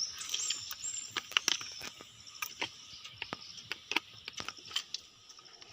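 Faint, irregular sharp clicks and snaps, with a thin high chirping tone in roughly the first second and a half.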